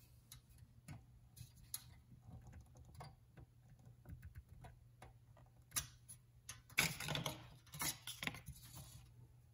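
Scattered light clicks and taps as the 1976 Corvette's metal center instrument-cluster housing is handled and checked, with a busier run of louder clicks about seven seconds in.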